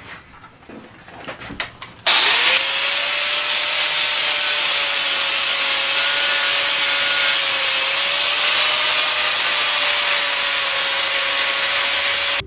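Angle grinder with a flap disc grinding the edges of a thick steel plate, cleaning them up before welding. It starts suddenly about two seconds in, its motor whine rising briefly as it spins up, then runs steadily and loudly under load.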